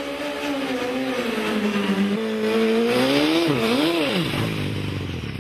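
A superbike engine at high revs. Its pitch sags slowly, then rises and falls twice, and it drops away about four seconds in, leaving a steady rushing noise.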